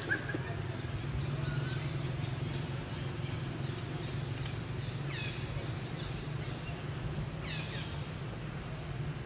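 Two short, high-pitched animal calls, each falling in pitch, about halfway through and again two or three seconds later, over a steady low hum.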